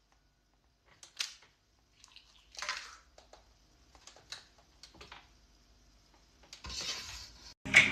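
Faint, scattered small clicks and brief rustles of hand and body movement, with a longer rustle near the end.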